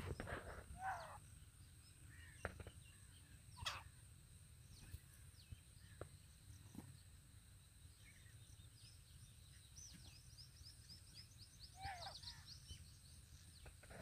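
Faint, scattered bird calls over a low background rumble: a few short sweeping calls in the first few seconds, and a quick run of high chirps near the end.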